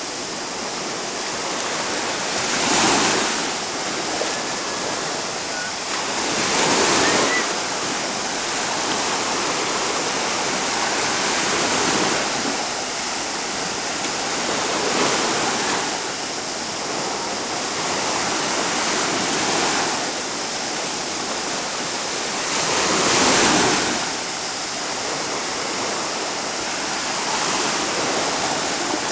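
Small sea waves breaking and washing up a beach: a steady rush of surf that swells louder every four or five seconds as each wave comes in.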